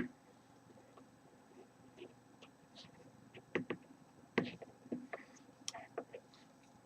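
Faint, scattered clicks and taps of plastic mounting pieces being handled and aligned on a CPU liquid cooler's snap-ring bracket, mostly in the second half.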